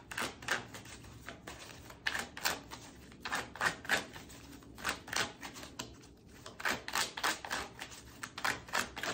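Tarot cards being shuffled by hand: a run of quick, uneven slaps and clicks of card on card, coming in clusters with short pauses.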